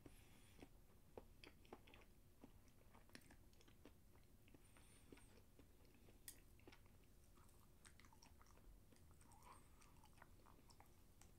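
Faint chewing of a mouthful of food, with scattered small clicks.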